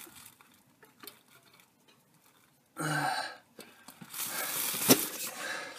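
Mini bicycle hand pump working on an inner tube's valve: air hissing and rubbing, loudest in the second half, with a sharp click near the end. A short low grunt from the man comes about halfway through.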